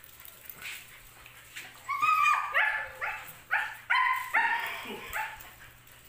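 Pocket bully puppy giving a quick series of about seven high-pitched yapping barks, starting about two seconds in, while tugging at a rope in play.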